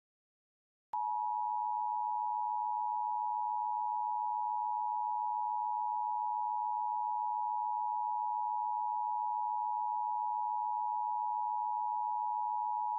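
Emergency Alert System attention signal: a steady electronic tone that starts sharply about a second in and holds unbroken. It is the alert tone that precedes a spoken emergency message.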